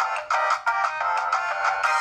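A built-in ringtone of the Sony Ericsson W950i playing: a quick electronic melody of short, bright notes.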